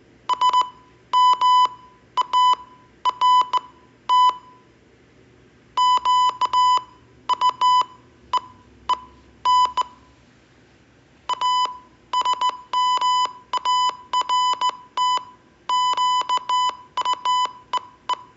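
Morse code sent as a steady beeping tone of about 1 kHz, keyed in short and long beeps grouped into letters, with longer pauses between words. It spells out the practice phrase "a smart queen".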